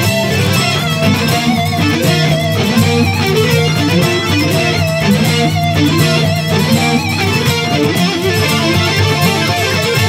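Guitar instrumental: a melodic electric lead guitar with wavering vibrato over acoustic guitar chords and sustained low bass notes.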